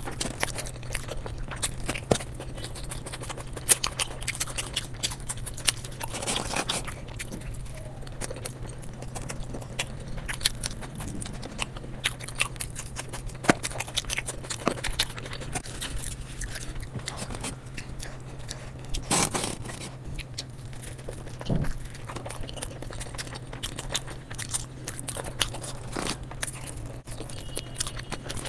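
Close-miked eating sounds: a person chewing and biting food eaten by hand (curry, flatbread and raw onion), with many short crunches and wet mouth clicks scattered throughout. A steady low hum lies underneath.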